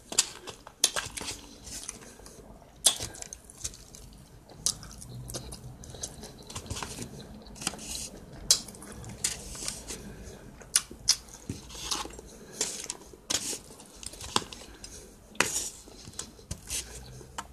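Close-up eating sounds: a fork clicking against a plate and crunchy chewing of salad with croutons, in irregular sharp clicks and crackles.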